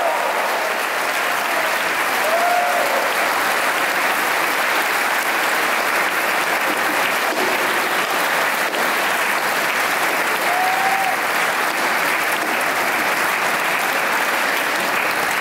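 Steady applause from a large audience and choir clapping together, with two brief calls rising above it, a few seconds in and again about ten seconds in.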